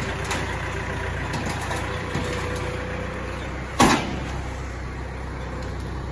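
Yanmar EF514T tractor's 51-horsepower diesel engine running steadily as the tractor climbs the ramps into a lorry. A single loud thump comes about four seconds in.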